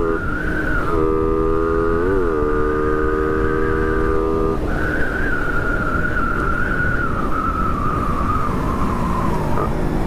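Small motorcycle engine running hard at high revs at speed, with heavy wind rush. Its pitch holds steady for several seconds, then about halfway through it changes to a higher whine that slowly drops toward the end.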